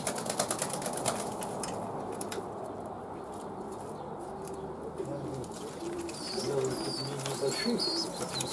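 Domestic pigeons cooing, with a flurry of wing flapping and rustling in the first couple of seconds and a few high chirps near the end.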